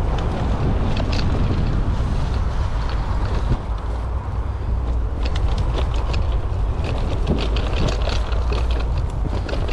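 Wind buffeting the GoPro's microphone during an off-road e-bike ride, a heavy low rumble throughout, with scattered clicks and rattles from the bike over rough ground.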